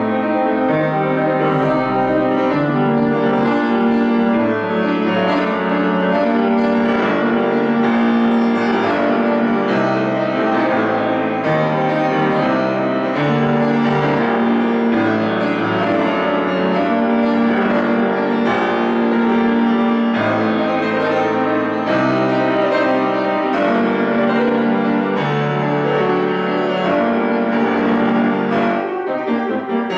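Solo grand piano playing a Baroque-style improvisation in G minor, with a steadily moving bass line under a busy upper part.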